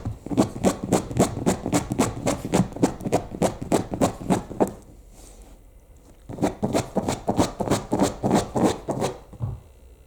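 Shiba Inu digging fast with its front paws, rapid even scratching strokes at about five a second. It stops about halfway through, then starts again for a few seconds.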